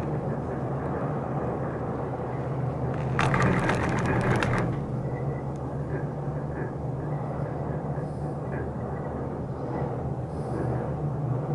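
Leitner six-seat gondola cabin running down the haul rope, heard from inside the cabin as a steady hum. About three seconds in it gives a rattling clatter lasting about a second and a half as it rolls over a tower's sheave train.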